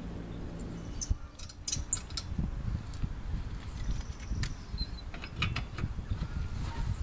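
Socket wrench turning the lug nuts off a car's steel wheel: scattered sharp metal clicks, one run of them about a second in and another cluster after about five seconds.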